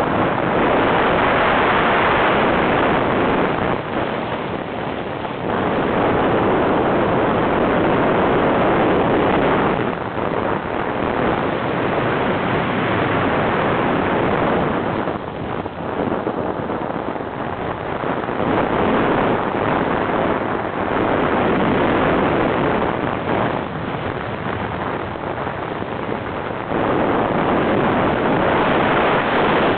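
Wind rushing over the microphone of a camera mounted on a hang glider in flight, a dense airflow noise that swells and eases every few seconds.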